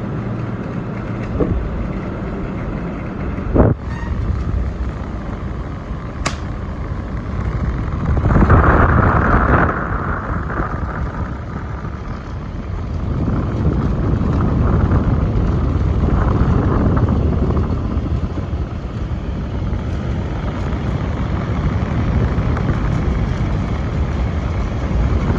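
Old General air conditioner running: a steady, loud drone with a deep rumble, a sharp click about three and a half seconds in, and a louder surge for a couple of seconds near the middle.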